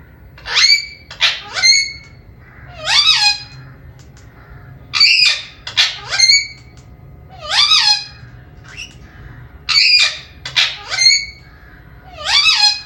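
Cockatiel calling over and over: a repeating phrase of short whistled, squawky calls with sliding pitch, one group about every two seconds.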